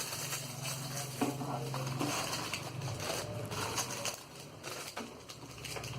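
Small plastic action-camera mounts and accessories being handled and set out: scattered light clicks, knocks and rustles.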